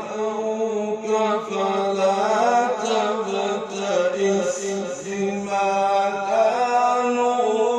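A man reciting the Quran in a melodic, chanted style. His voice holds long, drawn-out notes that waver in ornaments, with no break.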